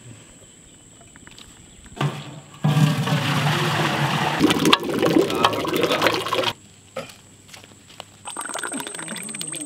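Muskmelon juice pouring in a steady gush for about four seconds, starting a little over two seconds in.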